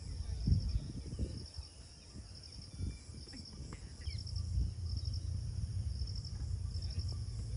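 Insects chirping in short, rapid pulsed trills that repeat every second or so, over the low, uneven rumble of wind on the microphone.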